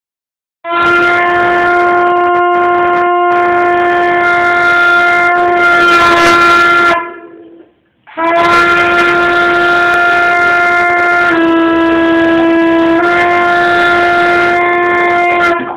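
A trumpet holds two long, loud notes, each about seven seconds, with a short break between them. The second note steps slightly lower for a moment and comes back. A Boston terrier howls along with the trumpet.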